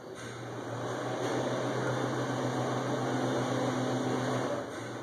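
A steady low mechanical hum, like an indoor appliance or fan running, easing off briefly near the end.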